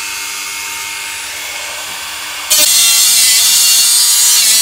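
Dremel rotary tool with an abrasive cut-off disc grinding through a VCR's sheet-metal lid: a steady high whine, which gets much louder about two and a half seconds in.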